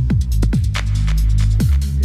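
Electronic dance music with a heavy bass line and punchy kick drums that drop in pitch, under sharp high percussion hits.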